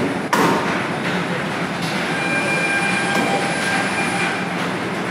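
Small electric kiddie ride train running on its circular floor track: a steady rumble of wheels on the rails with a few sharp clacks, and a thin high whine for about two seconds in the middle.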